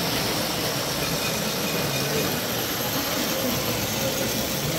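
Steady hall background noise with model trains running on the layout's track, a continuous even whirr without distinct clicks or voices.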